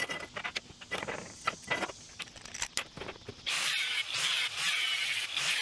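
Makita angle grinder's cut-off wheel cutting through square steel tube, starting about three and a half seconds in with a loud, steady grinding hiss. Before it, scattered clicks and knocks of the grinder and steel being handled.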